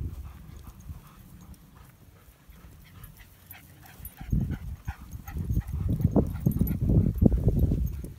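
A dog panting in quick, uneven breaths, quiet at first and louder from about halfway through, as a dog that is worn out from running does.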